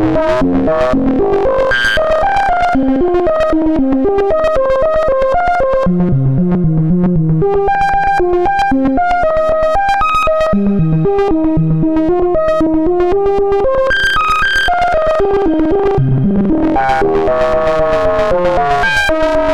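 Modular synthesizer arpeggio: a quick run of stepped notes from a sawtooth wave folded by a Synthetic Sound Labs Serge Triple Waveshaper, its control voltage 1 modulated by a Buchla oscillator being swept from LFO rate into audio range. Swooping, gliding tones join the notes near the start and again in the last few seconds.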